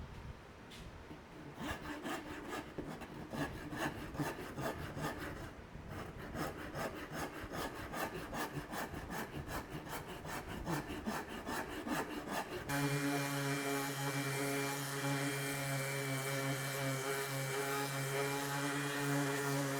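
Shinto rasp filing the edge of a sycamore guitar body in repeated strokes, wood rasping under the coarse teeth. About 13 seconds in it cuts off suddenly and steady background music with a sustained drone takes over.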